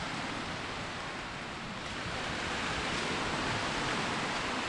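Steady rushing of beach surf and breeze, an even wash of noise that grows a little louder about two seconds in.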